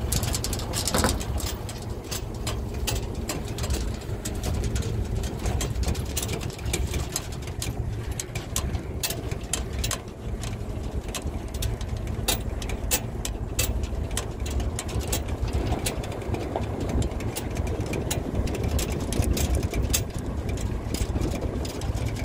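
Small truck driving on a rough dirt road, heard from its open cargo bed: a steady engine and road rumble with frequent sharp rattles and knocks from the jolting bed.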